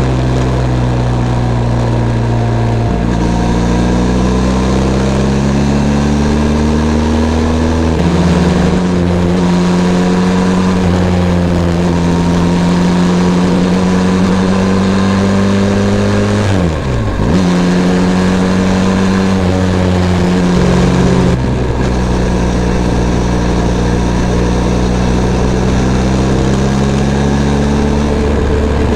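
Benelli TRK 502 X's 500 cc parallel-twin engine running under way, holding steady speeds with its pitch stepping up and down several times as the rider changes gear and throttle. About two-thirds of the way through the engine note drops sharply and recovers within a second.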